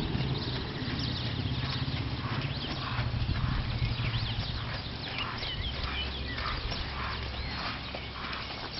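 A horse's hoofbeats on arena sand, a regular beat about twice a second, over a low steady hum, with a few short bird chirps about halfway through.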